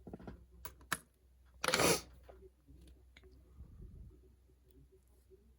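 Small metal clicks and taps from handling the disassembled ASSA 700 lock core and cylinder, with one brief louder rustle just under two seconds in.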